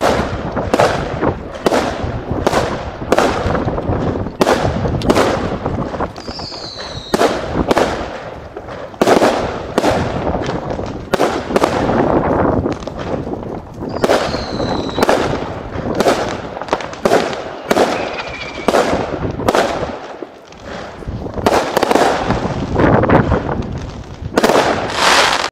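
Fireworks going off in a rapid run of bangs and crackles, several a second. Twice a short whistle falls in pitch among them.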